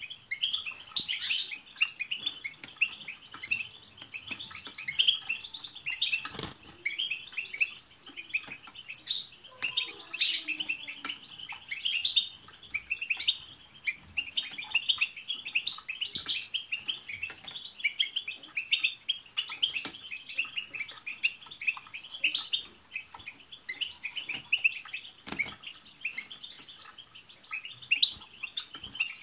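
A group of European goldfinches twittering and chirping together in a dense, unbroken chatter of quick high notes and trills.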